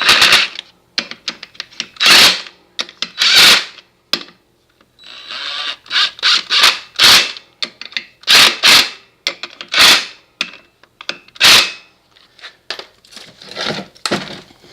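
Lug nuts on a mower wheel being run down by hand with a ratchet wrench: about a dozen short rasping strokes of ratchet clicking, with gaps between them.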